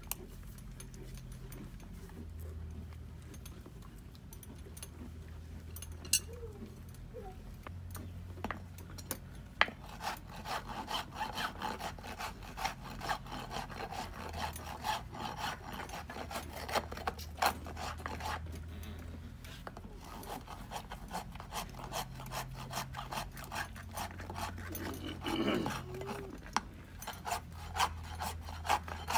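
Farrier's hoof rasp filing a horse's hoof: quick, repeated scraping strokes that start about a third of the way in and carry on to the end. Before them there are only a few scattered clicks.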